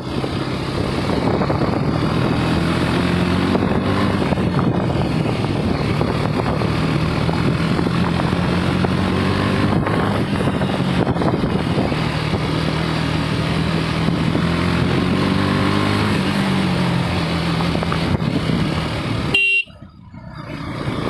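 KTM Duke 250's single-cylinder engine running on the move, its note rising and falling gently a few times, with wind and road noise on the microphone. The sound drops away abruptly near the end.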